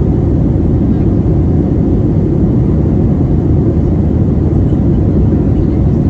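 Steady low rumble of an airliner in flight, heard from inside the cabin.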